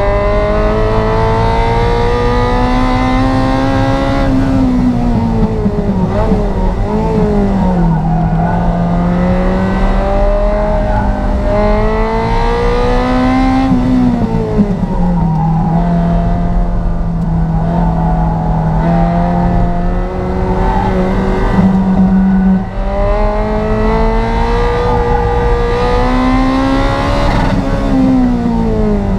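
Ferrari 348 Challenge's 3.4-litre V8 pulling hard on warm-up laps: the engine note climbs steadily for a few seconds, then falls back on lifting and downshifting, several times over, with a stretch of steadier running in the middle.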